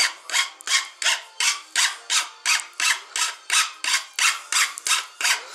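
Hand file rasping against the cut end of a white PVC central-vacuum pipe in quick, even strokes, about three a second, worked around the outer edge to deburr it and put a slight chamfer on the end.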